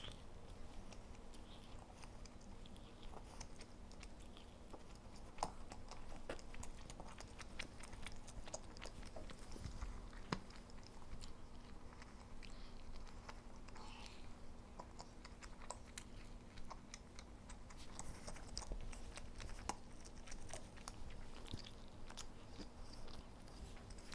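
A person biting and chewing a slice of pizza, picked up close on a clip-on lapel microphone: many small, irregular mouth clicks and smacks.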